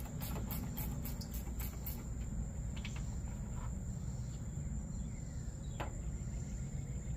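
A steady, high-pitched drone of insects over a low rumble, with two faint sharp clicks about three and six seconds in from a wrench working on a hood hinge bolt.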